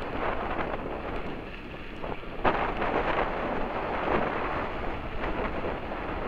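Wind buffeting the microphone of a camera riding on a mountain bike moving fast down a dirt fire road, mixed with the rumble of tyres on gravel. It swells into a louder gust about two and a half seconds in.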